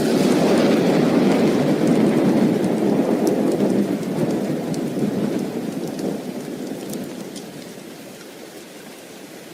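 Thunder rumbling over steady rain, loudest at first and dying away over about eight seconds.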